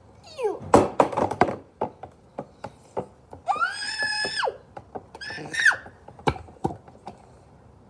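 A child's high-pitched squealing: one long squeal about halfway through and a shorter one soon after, among knocks and clicks of plastic toys being handled.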